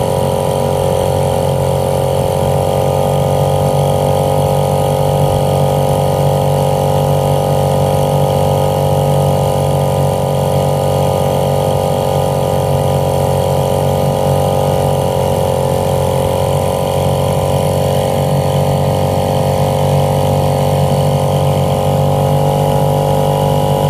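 1938 Evinrude Lightwin 4.7 hp outboard's two-stroke twin-cylinder engine running steadily, its pitch sagging briefly a little past halfway and then recovering.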